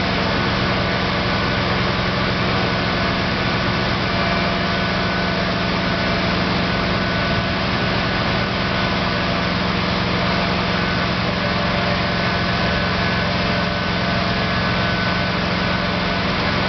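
Excavator's diesel engine running steadily with a constant low hum, powering the hydraulics as the newly fitted thumb attachment is cycled open and closed.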